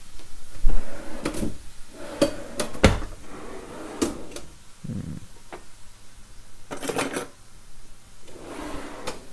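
Irregular clicks and knocks of kitchen items being handled, with a quick cluster of them about seven seconds in.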